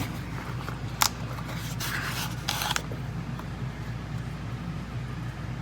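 Rubbing and rustling with a sharp click about a second in, over a steady low hum.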